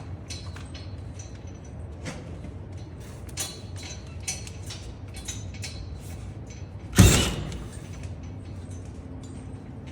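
Drywall and tools being handled: scattered light clicks and taps over a low steady hum, with one loud thump about seven seconds in.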